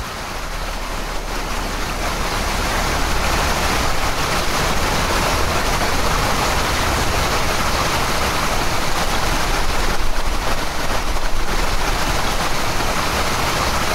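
A dense, even wash of rushing noise with no clear notes, swelling louder over the first few seconds and then holding steady: the closing noise section of a recorded song.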